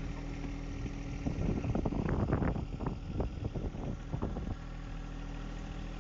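John Deere 1025R compact tractor's diesel engine idling steadily, with louder, irregular knocks and scrapes over it between about one and three seconds in.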